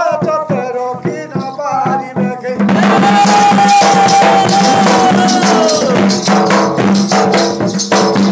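Folk dance music led by a large two-headed barrel drum beaten in a fast rhythm, with jangling rattle-like percussion. About two and a half seconds in the music grows louder and fuller, with a long held high note that slides down a few seconds later.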